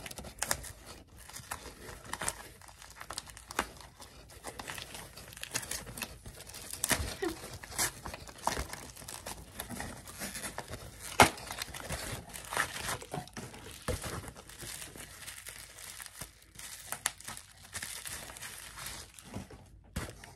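Paper packaging crinkling and tearing as a cardboard eyeshadow palette box is opened and handled over tissue paper, with irregular crackles and small clicks and one sharper snap about halfway through.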